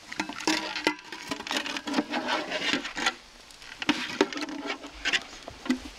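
A utensil scraping and stirring food in a frying pan, in uneven bursts with many sharp clicks and crackles.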